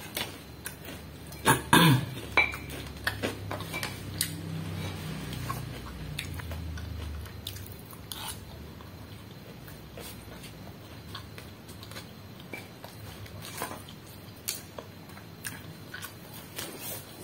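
Metal spoon clicking and scraping against the dish under a paper-wrapped rice meal, in scattered taps with a louder cluster about two seconds in, along with chewing.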